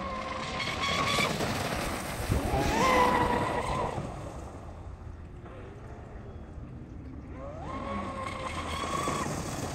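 Blackjack 42-inch 8S brushless RC catamaran running at speed: its electric motor's whine sweeps up in pitch with each burst of throttle, loudest about three seconds in as it passes close throwing spray, then fades and builds again near the end.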